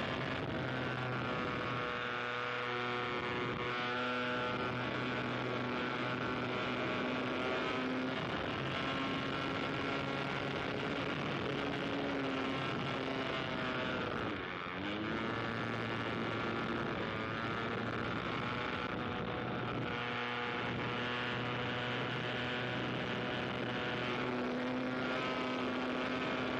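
A propeller plane's engine running steadily; its pitch dips and climbs back again about halfway through.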